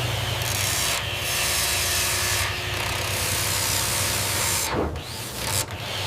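Table saw running with its blade ripping through a wooden board, a steady hum under a continuous cutting noise, which dips briefly about five seconds in.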